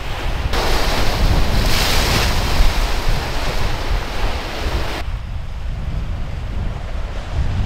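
Storm wind rumbling on the microphone, with sea waves breaking. A loud rush of surf starts about half a second in, is strongest around two seconds, and stops abruptly about five seconds in.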